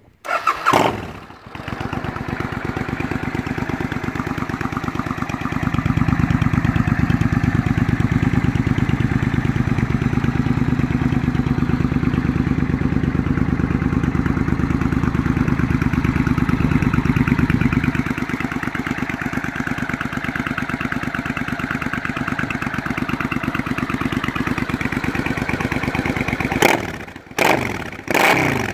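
A 1993 Suzuki Intruder 800's V-twin engine starts and settles into a steady idle, which runs louder for a stretch before easing back. Near the end the throttle is blipped a few times, with quick revs up and down.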